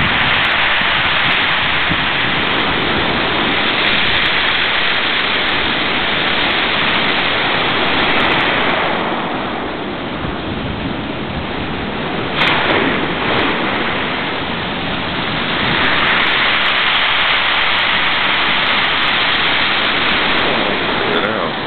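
Rough storm sea breaking and churning along the shore: a loud, continuous rushing surf that swells and eases every few seconds, with a short sharp crack about twelve seconds in.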